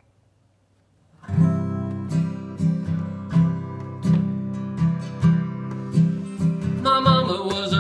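After about a second of near silence, a steel-string acoustic guitar starts strumming chords in a steady rhythm. A man's singing voice comes in near the end.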